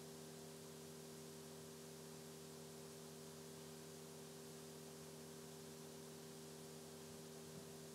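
Near silence: room tone, a steady faint hum with hiss.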